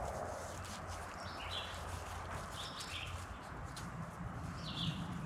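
A bird calling in short chirps, repeated every second or two, over a low steady hum and a few faint clicks.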